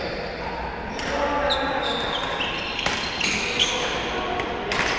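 Badminton doubles rally: sharp racket-on-shuttlecock hits several times, with sneakers squeaking on the wooden court floor.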